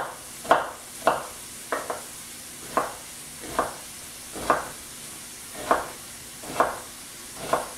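Kitchen knife chopping an onion on a wooden cutting board: about a dozen sharp knocks at an uneven pace. Sausage sizzles faintly in a skillet underneath.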